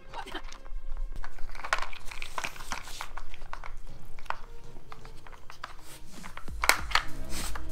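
Plastic lids and sliders of an Outward Hound dog treat puzzle clacking and rattling in irregular knocks as a dog noses and paws at them for treats.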